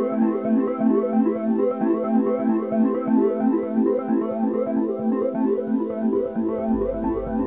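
Background music with quick, evenly repeated synthesizer-keyboard notes at a steady pace; a low bass line comes in near the end.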